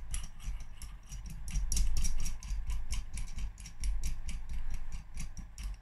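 Steel nut spun by hand down the threaded bar of a small bearing puller, giving a quick run of metallic ticks, about six a second, as it is run down onto the puller's spacer tube before tightening to draw out a clutch arm needle bearing.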